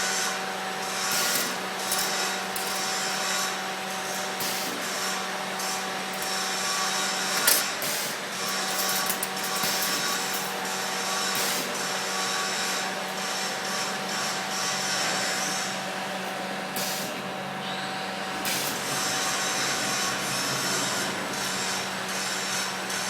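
CNC 2D wire bending machine running: a steady motor hum with irregular clicks throughout, and one sharp clack about seven and a half seconds in.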